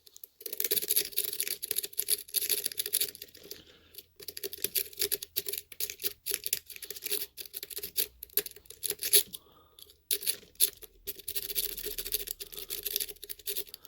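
Homemade rake pick scraping in and out of a Yale pin-tumbler lock's keyway over security pins under light tension: a fast, irregular metallic scratching and clicking. It comes in dense runs at the start and near the end, with sparser picking clicks between.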